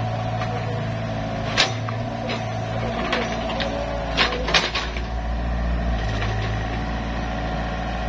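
Doosan mini excavator's diesel engine running steadily as it digs, with several sharp knocks from the bucket working the soil, the loudest about a second and a half in and twice between four and five seconds in.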